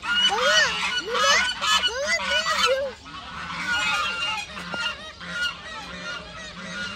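Greylag goose honking: a rapid string of loud, nasal honks over the first three seconds, then fainter calls.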